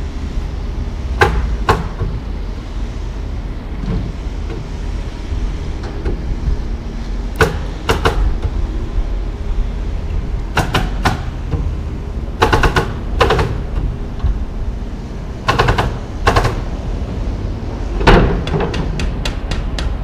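Sharp bangs from construction work on a wood-framed building, mostly in pairs about half a second apart, with a quick run of them near the end. Underneath is a steady low rumble.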